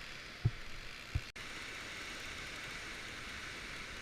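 Steady hiss of ocean surf and wash against the rocks below the cliff, with two brief low thumps about half a second and a second in.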